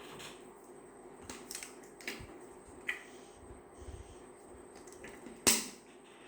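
Scattered sharp clicks and taps from desk work, the loudest about five and a half seconds in, over a steady fan hum and a thin, high, continuous cricket trill.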